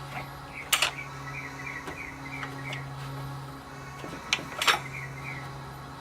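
Several sharp metallic clicks and clanks of hand tools and parts being worked on a car, the loudest about four and a half seconds in, over quiet background music with short chirping notes and a steady low drone.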